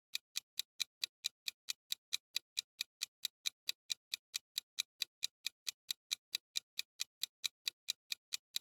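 Clock-style countdown timer sound effect: a steady, even ticking about four to five times a second.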